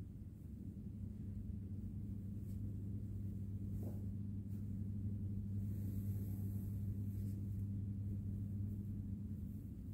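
Low steady hum with a few faint clicks.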